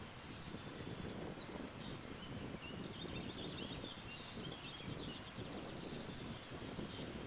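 Steady wind outdoors, with small birds chirping and one giving a rapid high trill in the middle of the stretch.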